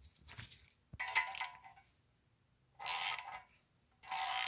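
3/8-inch drive ratchet with an 11 mm socket clicking in four short runs as it is swung back and forth, tightening the nuts of a valve spring compressor to compress the valve springs.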